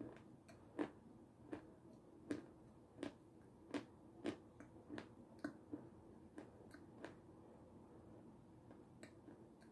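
Close-up mouth sounds of chewing a soft homemade coconut Raffaello-style candy with closed lips: faint wet clicks and smacks, irregular, about one or two a second.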